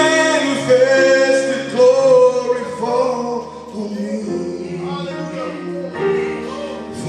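A man singing a slow gospel worship song, holding long notes, to his own electronic keyboard accompaniment.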